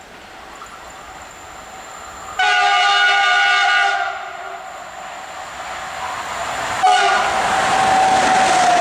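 Siemens electric locomotive approaching and passing at speed. It sounds its horn, a chord of several tones, for about a second and a half, then gives a second short blast about seven seconds in whose pitch drops as it goes by. The rumble of wheels on the rails grows louder as the train passes.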